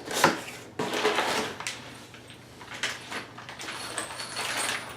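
A cardboard shipping box and a rotomolded plastic dog kennel being handled during unpacking. There is a sharp knock just after the start, then scraping and rustling in bursts.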